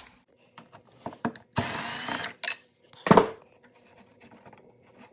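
Leaf blower starter-housing parts being handled: scattered clicks, a short rasping burst about a second and a half in, and a loud knock a little after 3 seconds.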